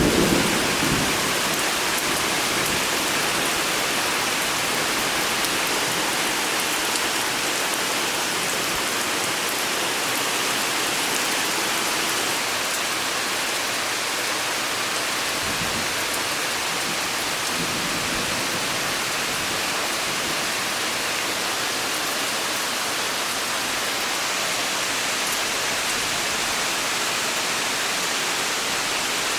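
Steady rain falling, an even hiss and patter that holds at a constant level throughout. A low rumble of thunder dies away in the first second.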